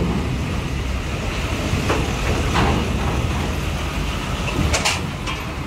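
Steady low rumble of heavy diesel vehicles, with four sharp metallic clanks as wheels cross the ferry's steel loading ramp: two about two seconds in and two more near the end.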